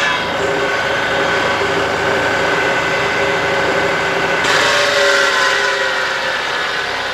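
John Deere tractor's diesel engine running while the hydraulic pump spins the Lane Shark front-mount brush cutter's blade. There is a steady whine over the engine's fast low pulsing. About four and a half seconds in comes a rush of hiss, and after that the whine slowly drops in pitch.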